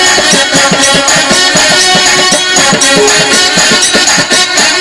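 Instrumental interlude of rasiya folk music, loud, driven by a quick, even drum beat under sustained melodic tones.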